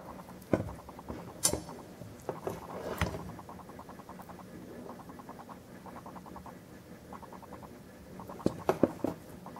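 Chrysler windshield wiper linkage arms and pivots handled on a workbench, metal on metal: a few sharp clicks, then a faint, fast scratchy ticking, and a quick run of clicks near the end.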